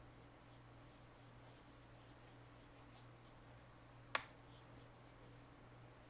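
Very faint strokes of a 3/4 inch angle shader brush wiping a wet watercolor wash across cotton watercolor paper, over a low steady hum. A single sharp click comes a little after halfway.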